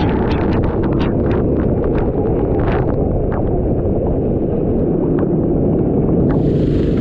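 Rental kart engine running steadily under heavy wind rumble on the microphone, with scattered sharp clicks and a short hiss near the end.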